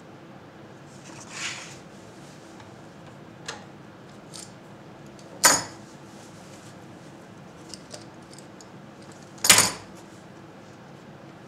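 Steel bar clamps being handled on a wooden workbench: a few light clicks and scrapes, with two sharp metallic knocks about five and a half and nine and a half seconds in as clamps are set down.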